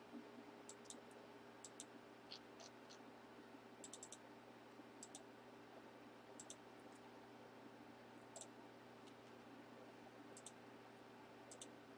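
Near silence with a faint steady hum and scattered short, sharp clicks, a few at a time, spread through the whole stretch.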